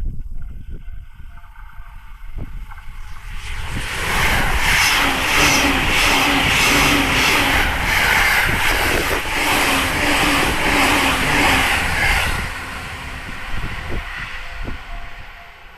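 E259 series Narita Express electric train passing at speed, loud for about eight seconds from a few seconds in, with an even clatter of wheels over rail joints about twice a second. A level crossing warning bell rings steadily before and after the pass.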